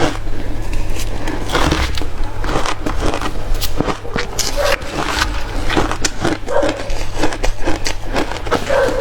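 A person chewing hard crushed ice: a dense, irregular run of crisp crunches and cracks.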